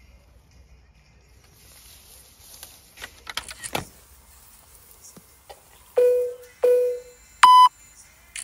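A few clicks and handling noises, then three electronic beeps: two short lower tones that fade out, followed by a louder, higher steady beep.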